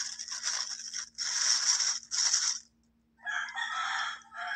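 A few seconds of rustling, handling noise in three bursts, then a rooster crowing near the end.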